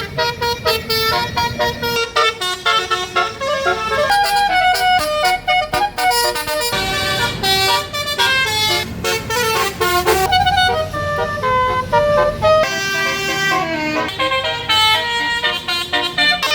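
Bus 'telolet basuri' musical air horn playing a fast, continuous melody of short notes that jump up and down in pitch.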